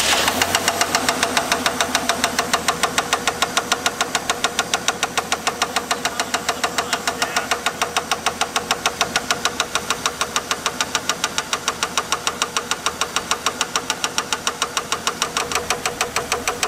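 AMC Eagle engine running with a rapid, even knock. The owners suspect bottom-end or wrist-pin trouble, though one doubts it is bottom-end noise because the knock seems too rapid.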